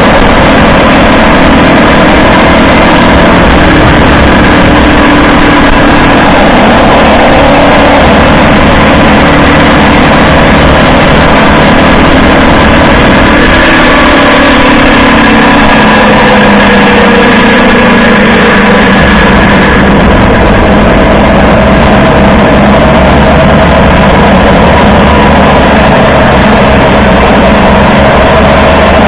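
Toyota HiAce 200-series van on the move: loud, steady tyre road noise with steady drivetrain tones that slide down in pitch about halfway through. The differential is making a rattling noise under the road noise, which the owner puts down to the diff, since the hub bearings have already been replaced.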